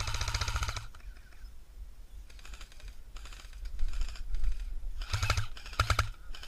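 Airsoft rifles firing on full auto: a rapid burst of clicks lasting under a second at the start, then two shorter bursts about five and six seconds in.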